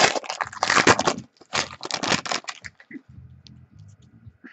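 A trading-card pack wrapper torn open and crinkled, loudly for about two and a half seconds. Then quieter rustling and soft clicks as the cards are slid out and handled.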